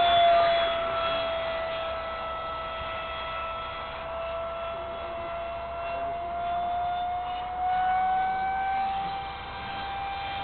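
Whine of a JS1400 electric ducted fan on a 4S battery, powering an RC jet in flight. The steady high pitch sags a little in the middle, then climbs back up near the end.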